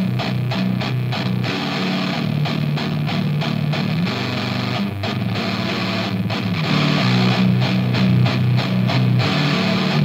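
Doom/sludge metal track: a heavily distorted electric guitar riff played in rhythmic, chopped chords, with little deep bass under it.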